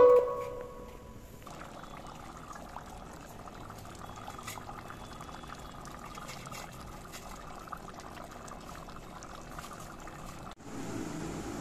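Fish curry gravy bubbling as it simmers in a pan, a low patter of small pops and crackles. About ten seconds in it cuts off and gives way to a steadier hiss.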